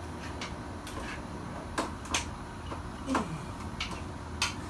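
A few light metallic clicks and knocks from tools and parts being handled while the generator is worked loose from the engine, with a short sound that falls in pitch about three seconds in.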